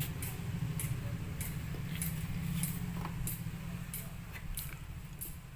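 Screwdriver driving a self-tapping screw through a motorcycle's plastic fairing to fix a winglet: sharp clicks come roughly every half second, over a steady low hum.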